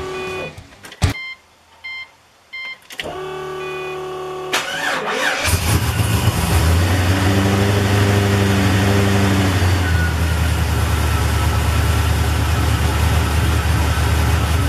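Cold start of an E85-fuelled, ProCharger-supercharged LS3 V8: a few short dash chime beeps as the key is switched on to prime the fuel system, then the starter cranks for about a second on a lightweight battery with low cold cranking amps, and the engine catches about five and a half seconds in and settles into a steady fast idle.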